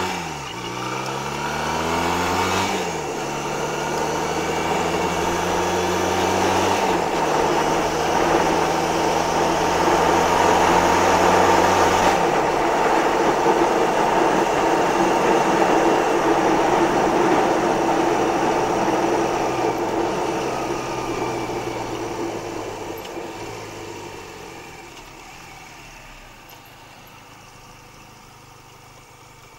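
Motorcycle engine pulling away with rising pitch and shifting up about 3 and 7 seconds in, then running at steady cruising speed under a loud rush of wind noise. It slows and drops to a quiet idle near the end.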